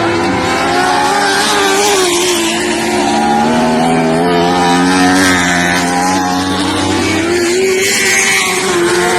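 Several lightning sprint car engines racing around the track at once, their pitch rising and falling as they accelerate, lift and pass.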